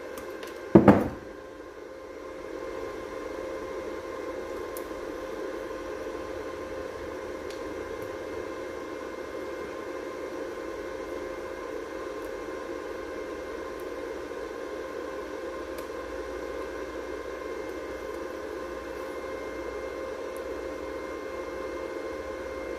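A sharp click about a second in. Then a Titanium Flux 125 flux-core welder, switched on, starts a steady mechanical hum with a constant tone in it.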